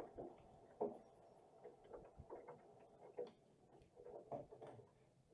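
Near silence: faint room tone with scattered soft ticks.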